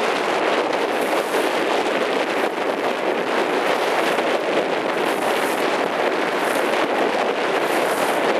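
Wind blowing hard across the microphone over a choppy sea: a steady rushing noise with no break.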